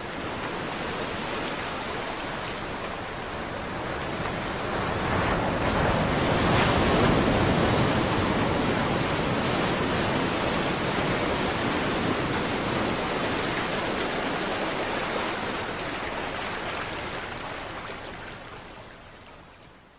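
Ocean surf: a continuous wash of breaking waves that swells about five seconds in, then slowly dies away and fades out near the end.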